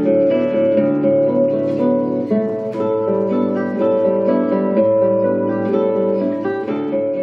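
A lullaby melody of plucked-string notes playing through the small built-in speaker of an Etekcity white noise sound machine, streamed from a phone over Bluetooth.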